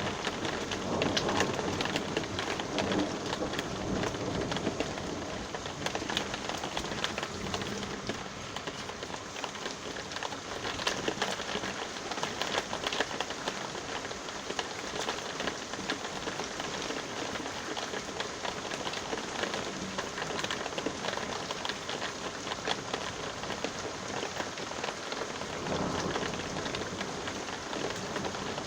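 Steady rain falling, with a dense pattering of drops. A low rumble of thunder sits under it in the first few seconds and builds again near the end.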